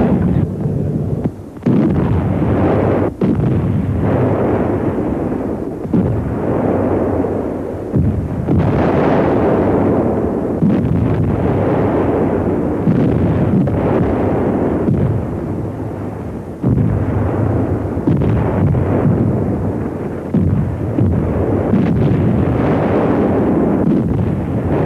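Heavy coastal artillery firing: a run of loud booms, several arriving suddenly a few seconds apart, each rolling into a long rumble so the noise hardly lets up. The sound is dull and muffled, with little in the upper range.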